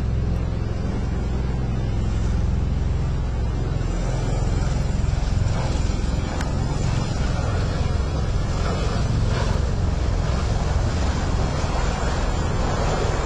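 Aircraft engines rumbling steadily, mixed with wind buffeting the microphone; the noise fills out a few seconds in.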